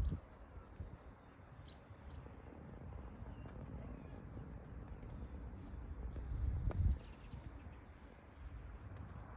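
Outdoor ambience of wind buffeting the microphone, rumbling and swelling in a gust near the end, with a few faint bird chirps in the first two seconds.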